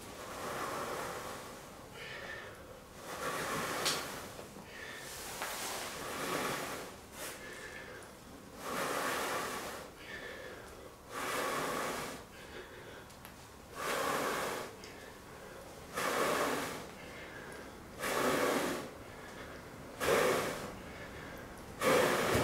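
A man blowing hard into a tinder bundle to coax a bow-drill ember into flame: about ten long breaths, one every two seconds or so, getting louder toward the end.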